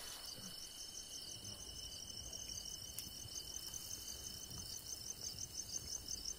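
Crickets chirping faintly in a fast, even rhythm, with a steady high insect whine beneath.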